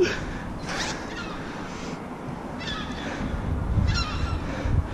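Wind rumbling on a body-worn action camera during a climb up a tower crane's steel ladder, with a few faint bird calls.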